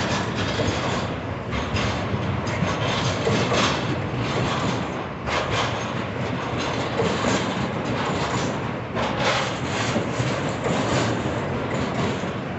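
Freight train of container-laden flatcars rolling past, a steady rumble with the wheels clacking irregularly over rail joints.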